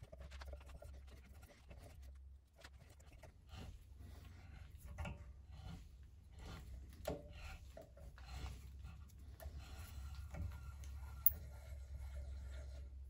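Hand tap cutting threads in a metal bracket, worked a little forward and a little back with a T-handle tap wrench: faint, irregular scraping and clicking from the tap and wrench, with one sharper click near the end, over a steady low hum.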